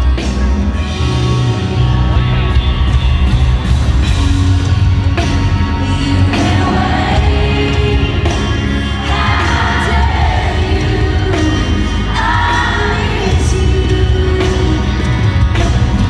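Live country band playing loud with heavy bass, and a woman's lead vocal coming and going over it, heard from the audience in an arena.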